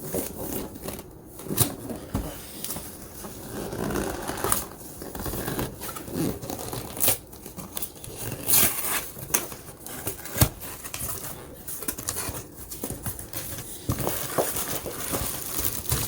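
Cardboard box and plastic packaging being opened and handled: irregular crinkling, tearing and rustling with scattered sharp clicks and knocks.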